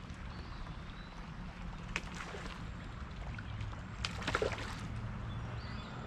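Creek water running and lapping around a kayak, with a sharp click or knock about two seconds in and a few more just after four seconds.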